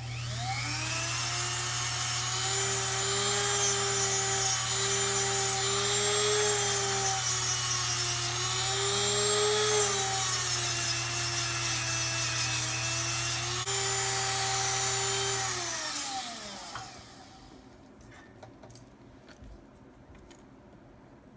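Jeweller's flex-shaft rotary tool spinning up to a whine over a low motor hum, its speed wavering a little as a bristle brush polishes a silver bolo tie setting. It winds down with a falling pitch about sixteen seconds in.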